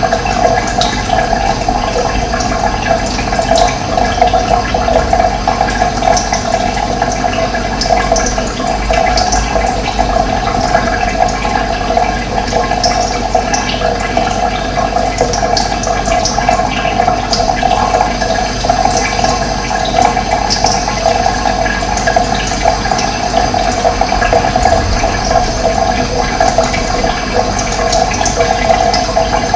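Steady rush of running water, with short bird calls scattered high above it.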